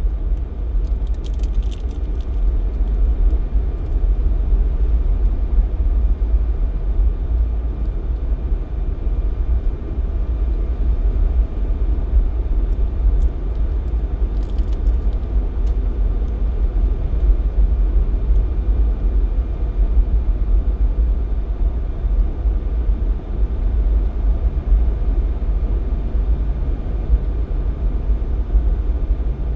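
Steady low rumble of a Jeep Cherokee XJ driving on a snowy highway: engine and road noise, with a few faint ticks.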